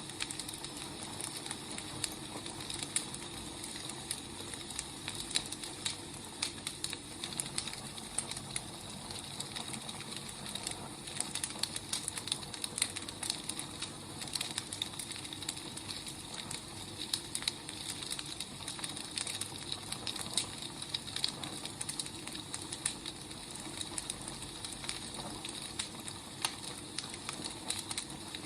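Wood fire burning, a steady hiss with irregular crackles and small pops of the burning logs.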